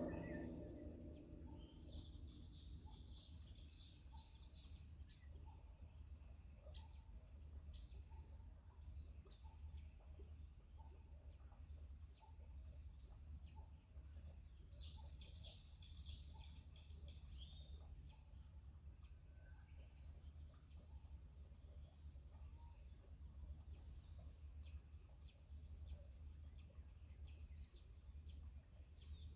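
Faint outdoor nature ambience: insects shrilling steadily and high, with birds chirping in two short bursts, one near the start and one about halfway through, over a low steady rumble.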